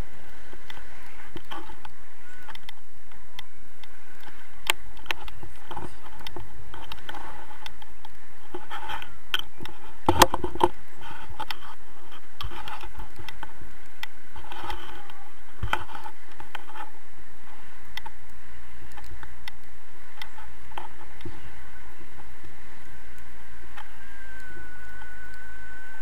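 Airflow noise and rustling on an action camera's microphone while flying under a tandem paraglider, with scattered clicks and knocks from the camera pole being handled, the loudest cluster about ten seconds in. A steady high tone sets in near the end.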